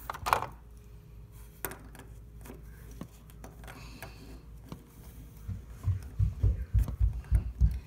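Plastic toy figures being handled and moved by hand, with a few light clicks and knocks, then a run of low dull thumps in the last couple of seconds.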